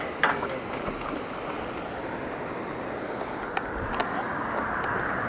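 Steady rush of running water from the river below, with a few sharp clicks and knocks. The loudest knock comes about a quarter second in, and two lighter ones follow near the end.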